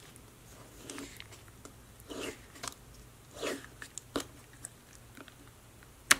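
Fingers pressing, poking and pulling a jiggly, water-like store-bought cookie dough slime in its plastic cup: several soft squishes and crackles, with a single sharp click near the end.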